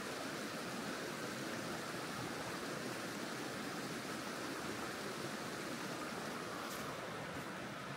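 Shallow forest stream running steadily past a stone slab bridge, an even rush of water.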